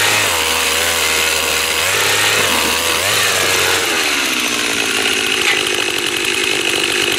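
Gas-powered ice auger engine running under load as the auger bores through the ice, its pitch wavering. About four seconds in, the engine note drops and settles to a lower, steadier run as the auger is lifted out of the finished hole.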